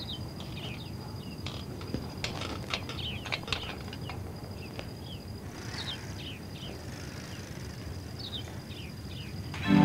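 Quiet night ambience of insects: a steady high-pitched chirring with scattered short chirps. Light clicks and knocks from the old bicycle come about two to three and a half seconds in, as a rider gets onto it.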